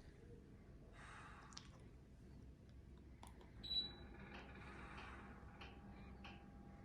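A mini split air conditioner's indoor unit gives one short high beep about halfway through, the sound it makes when it accepts a remote command. A faint steady hum begins after the beep, with scattered faint clicks around it.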